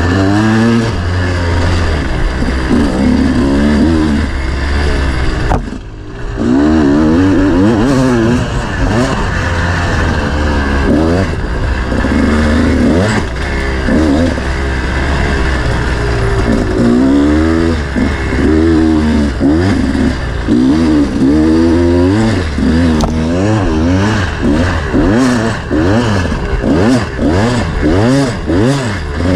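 Off-road motorcycle engine revving up and down over and over as the throttle is rolled on and off, with a short drop about six seconds in.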